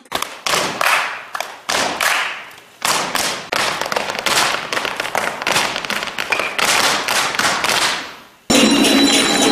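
Dancers' feet stamping on the stage floor in sharp, irregular beats, each ringing briefly in the hall. Music starts again near the end.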